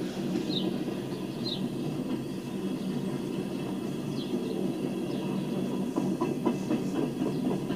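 Empty coal hopper cars rolling past with a steady low rumble, and their wheels clicking over the rail joints from about three-quarters of the way through. A few short, high, falling chirps sound near the start and again about halfway.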